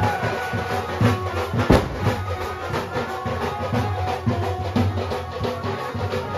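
Music with a steady drum beat and held melodic notes, with one sharp click just under two seconds in.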